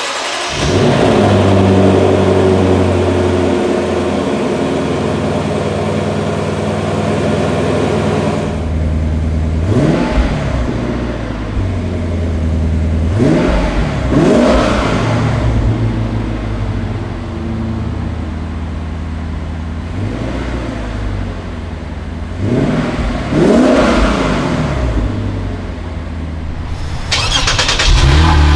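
2016 Lexus GS F's 5.0-litre V8 fires up with a flare and settles to a steady idle, then is revved sharply several times, each rev climbing and falling back within about a second. Near the end it cuts to the lower, steady idle of a 2016 Lexus GS 350's V6.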